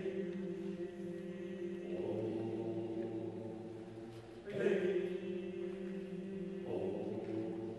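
Mixed choir of women's and men's voices singing long, sustained chords, with a new swelling phrase coming in three times.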